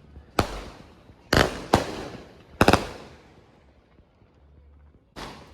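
A consumer 'Cyber Warfare' firework cake firing: a string of sharp bangs in the first three seconds, two of them close together, then a lull and one more bang near the end.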